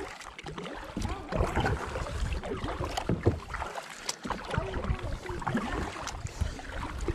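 Kayak paddle strokes: the blades dipping and splashing in calm river water, with water dripping off them, and wind rumbling on the microphone.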